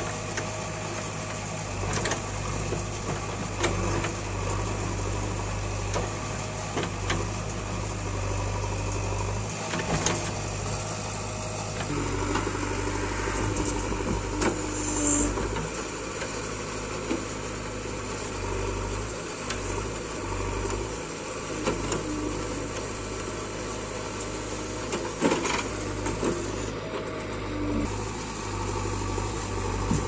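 JCB 3DX backhoe loader's diesel engine running steadily while the backhoe digs, with a few short sharp knocks here and there.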